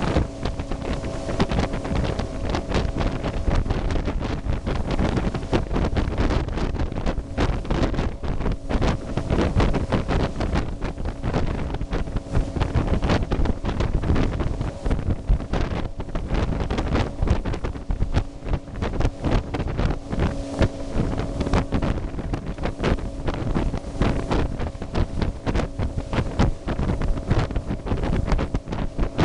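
Motorboat engine running with a steady hum, under heavy wind buffeting on the microphone.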